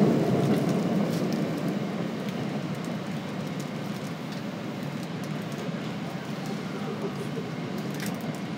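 Inside a Midosuji Line subway car: the train's running rumble fades over the first couple of seconds, then settles into a steady, quieter rumble with a few faint clicks.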